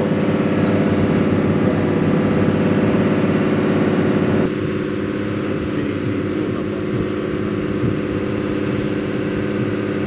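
Small ferry boat's engine running steadily under way. About four and a half seconds in it settles to a lower, quieter note.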